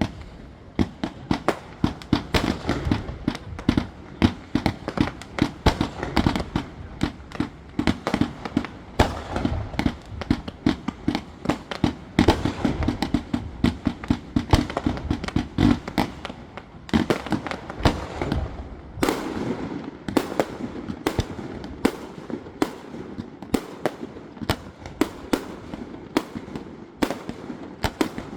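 Aerial fireworks going off in rapid succession: a dense run of irregular bangs and crackling pops, several a second, over a low rumble.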